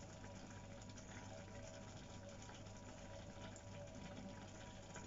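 Faint, steady sizzling and bubbling of food cooking in a pan on the stove, over a low steady hum.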